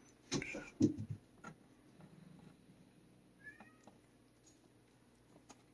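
A domestic cat meows once briefly, a short low call within the first second, followed only by faint ticks.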